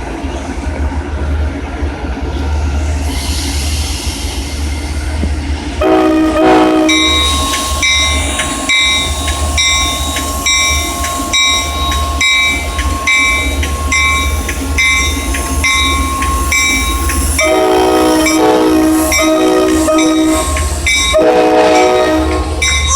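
Diesel locomotive horn sounding over the steady low rumble of the engine. There is one blast about six seconds in, then a run of short blasts through the last several seconds. Between them a bell rings about twice a second.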